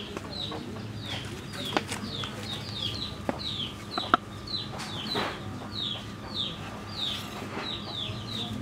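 Chicks peeping continually, short falling chirps several a second, with a few sharp taps of a knife on a wooden chopping block as mushrooms are sliced; the loudest tap is about four seconds in.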